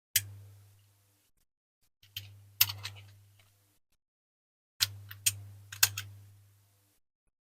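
Sharp clicks and taps, in three short clusters, of a diecast model and small tools being handled and knocked on a workbench.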